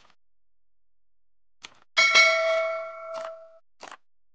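Subscribe-button animation sound effect: a faint click, then a bright notification-bell ding about two seconds in that rings for about a second and a half and fades, followed by a few short soft clicks.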